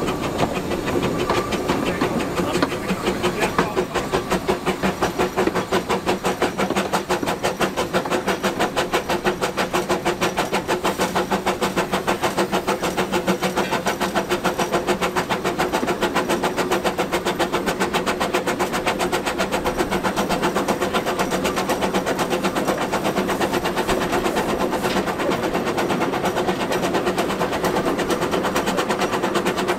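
Small narrow-gauge steam locomotive working along the line, heard from its cab: a rapid, even run of exhaust chuffs with a steady hum underneath.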